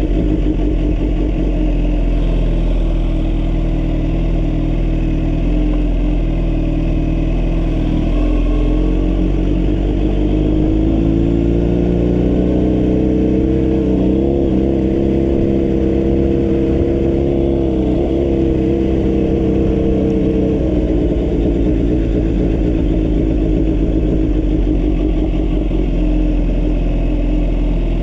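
A vehicle engine running under way. Its note rises about ten seconds in, holds, then drops back about twenty seconds in, over a steady low rumble.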